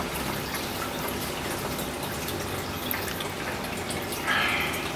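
Water running and trickling steadily in an aquarium tank with a circulation pump, briefly louder near the end.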